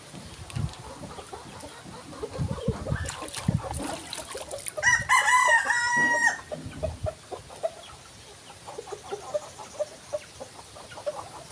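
A rooster crows once about five seconds in: one long call, held level and dropping at the end. Soft rustling and rubbing runs under it.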